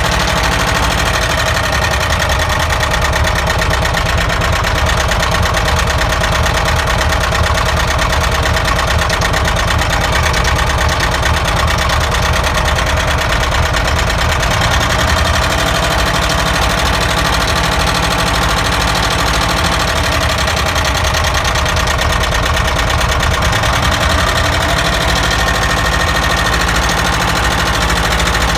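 ZAZ car engine idling steadily with a fast, even knock running through it: the engine knock being traced.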